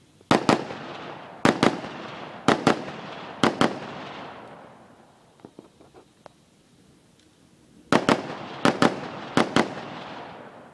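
AR-15 rifle fired in quick double shots: four pairs about a second apart, then a pause with a few faint clicks, then three more pairs. Each shot trails off in a fading echo.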